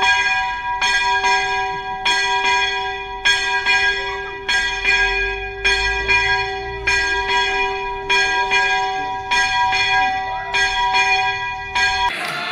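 A single church bell struck over and over, about one to two strikes a second, with each strike ringing on into the next. Near the end it cuts off into a short burst of noise.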